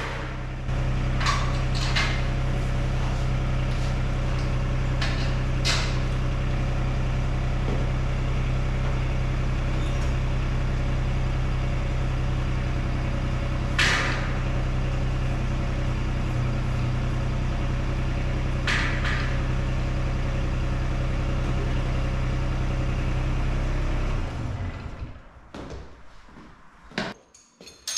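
Engine idling steadily, shut off about 24 seconds in, with a few sharp metallic clinks over it; after it stops, only light clicks and clinks.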